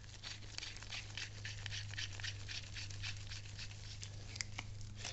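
Rapid, irregular small clicks and scrapes of a metal end cap being turned by gloved hands onto the threaded end of a Volvo Penta mechanical tilt assembly, over a steady low hum.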